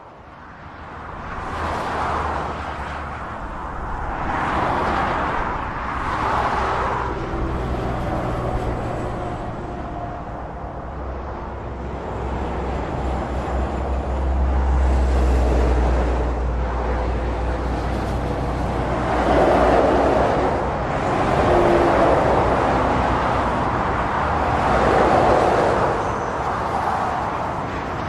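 Motorway traffic: cars and lorries passing in a steady stream, each one swelling and fading over a constant low rumble, with the loudest pass-bys coming every few seconds.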